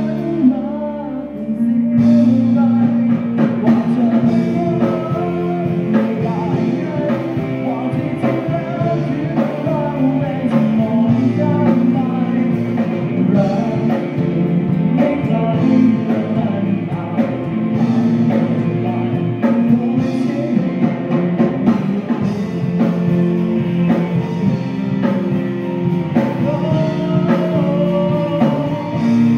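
Live rock band playing a song: a male singer over electric guitars, bass guitar and drum kit. The drums and cymbals come in fully about two seconds in.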